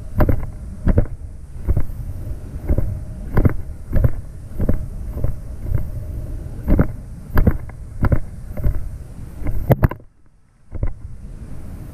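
Sea-Doo Spark Trixx personal watercraft running hard over chop, its hull slapping the waves in sharp knocks about every two-thirds of a second over a steady engine and wind rumble. Near the end the sound cuts out for a moment, then goes on quieter and steadier.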